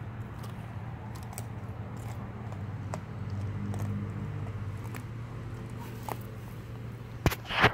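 Young Lycan Shepherd puppy chewing and crunching the bony head of a raw whole tilapia: scattered faint crunches, then a louder spell of crunching near the end. A steady low hum runs underneath.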